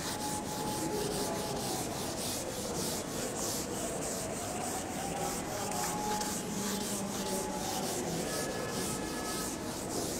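Whiteboard eraser rubbed back and forth across a whiteboard, wiping off marker writing in quick, evenly repeated strokes.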